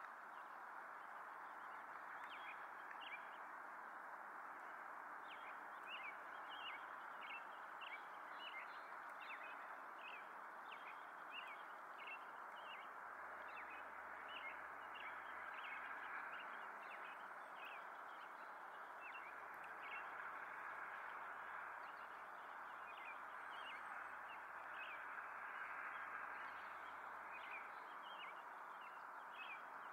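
Outdoor ambience of a steady, even hiss, with many short high bird chirps repeating about two a second throughout.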